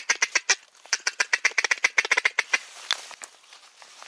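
A rapid run of short, sharp duck calls, about six a second, that thins out and stops after a couple of seconds with one more call a moment later.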